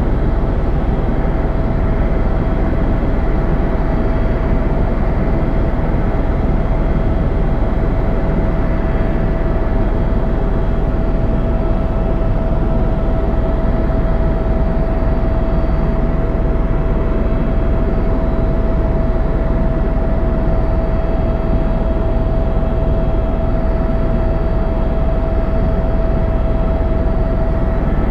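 Tour helicopter in flight, heard on board: a steady, unchanging rotor and engine noise with one constant whine above it.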